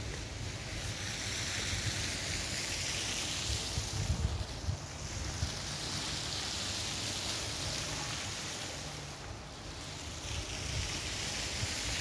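Wind buffeting a phone's microphone in uneven gusts of rumble, strongest about four seconds in, over a steady hiss.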